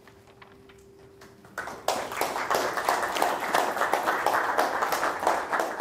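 Audience clapping, breaking out about a second and a half in after a moment of quiet room tone with a faint steady hum, as applause at the end of a talk.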